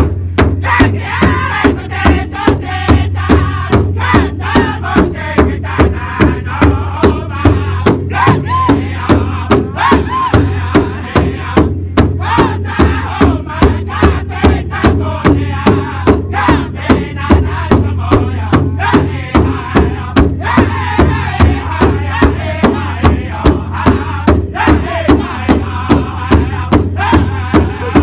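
A powwow drum group singing an intertribal song in unison, loud and high, over a large shared powwow drum struck together in a steady beat of about two strokes a second.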